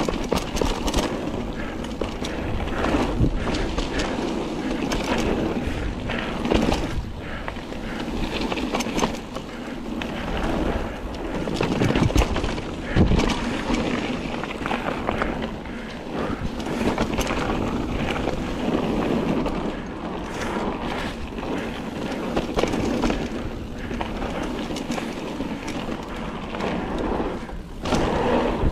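Mountain bike riding down a dirt trail: tyres rolling and skidding over dirt and roots, with frequent rattles and knocks from the bike over bumps.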